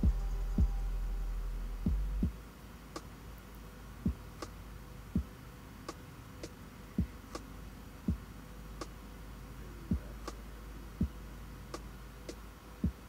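Background music: a sparse beat of deep, drum-like thumps, roughly one a second, over a low bass hum that fades after about two seconds.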